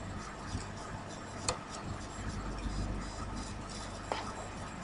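Faint background noise of a home recording: a low steady mains hum and hiss, with a few small clicks, the sharpest about a second and a half in and another near the end.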